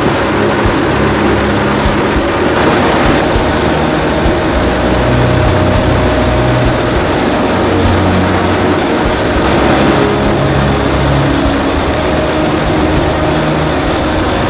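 Centrifugal extraction fan of a powder coating booth's recovery system running: a steady, loud rush of air with a low hum underneath.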